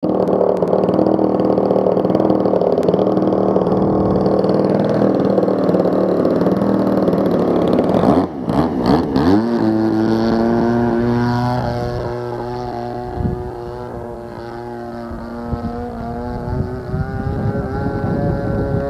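DLE 20cc single-cylinder two-stroke petrol engine of a radio-controlled model airplane running, loud and close at first. About eight seconds in the sound breaks and the engine note rises as it throttles up; it then holds a steady note that grows fainter as the plane climbs away.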